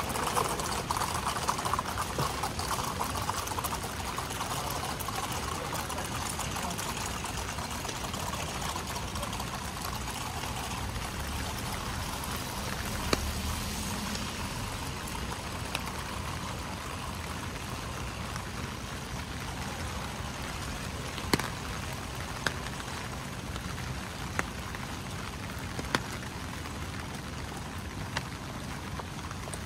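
Steady rain with water pouring and trickling, and a few scattered sharp drips in the second half.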